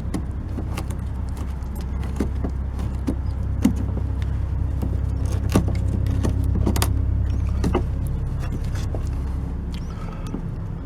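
A steady low mechanical hum runs throughout, like a motor running. Over it come scattered short clicks and scrapes of a chisel picking out rotted wood from a door frame.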